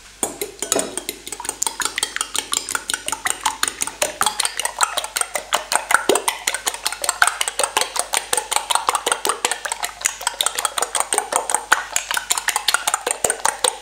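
Metal fork whisking raw eggs in a glass bowl: rapid, regular clinks of the fork striking the glass, beginning just after the start.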